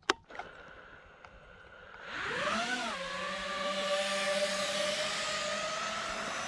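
A click, then about two seconds in a 5-inch FPV quadcopter's brushless motors and propellers spin up with a whine that rises and falls in pitch. The whine then settles into a steady hum.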